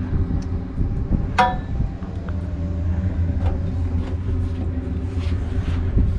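Steady low rumble with a single sharp metallic clink that rings briefly about a second and a half in, and a few faint ticks, as a screw is worked into the metal grab rail's mounting on the RV door.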